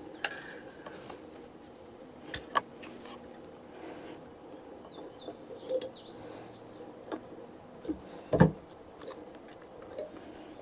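Two .22 LR shots from a Savage FV bolt-action rifle, about two and a half and eight and a half seconds in, the second the louder, with fainter clicks and knocks between them. Birds chirp faintly.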